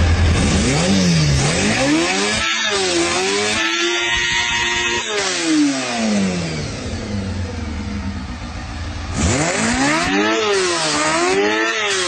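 Sport motorcycle engine revved up and down several times. A long climb and fall in pitch comes in the first half, then two quick throttle blips near the end.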